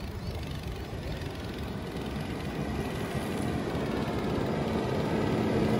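Wind rushing over the microphone and road rumble from a moving road bike, growing gradually louder as the ride goes on.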